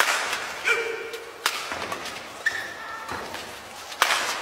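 Badminton rackets striking the shuttlecock in a fast doubles rally, about five sharp hits, the loudest at the start and about four seconds in, with short squeaks of players' shoes on the court floor between them, echoing in a large hall.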